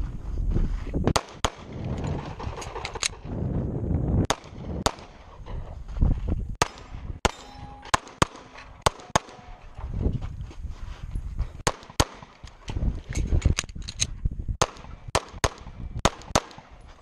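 Handgun firing strings of shots in practical-shooting competition, mostly as quick pairs, about two dozen shots in all, with short pauses and a low rumble between strings.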